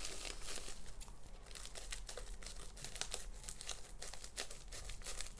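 Scissors cutting through a plastic mailer envelope, the plastic crinkling and crackling in quick irregular snaps as it is cut and handled.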